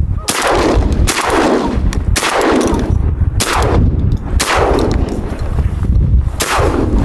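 A volley of about six shotgun blasts fired at incoming geese, unevenly spaced over several seconds with a longer gap before the last. Each blast rings out and echoes away over the water.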